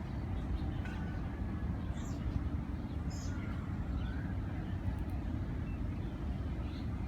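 Steady low outdoor rumble, like distant traffic or wind on the microphone, with faint scattered bird chirps over it.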